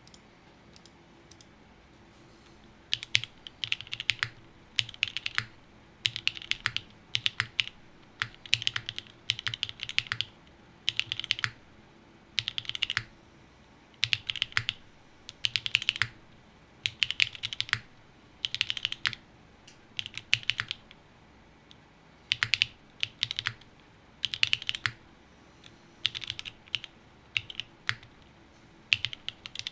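Typing on a TGR Tomo custom mechanical keyboard with broken-in, lubed NovelKeys Cream linear switches, an aluminium plate and GMK keycaps. The keystrokes come in short bursts of several presses, roughly one burst a second, starting about three seconds in.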